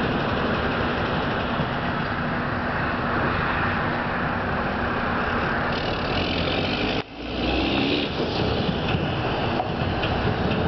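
Mack R-model dump truck's diesel engine running steadily, with a sudden short break about seven seconds in before it carries on.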